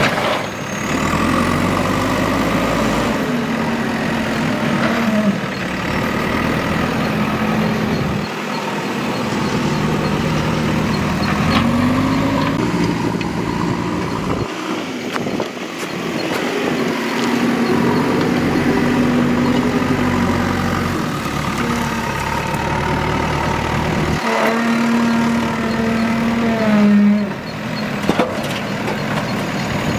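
Diesel engine of a JCB 3DX backhoe loader working, its note rising and falling as it revs under load and settles back, with a few short clanks.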